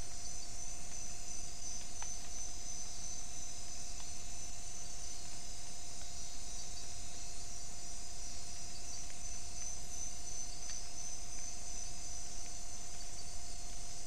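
Chorus of night insects: crickets trilling, a continuous high shrill sound.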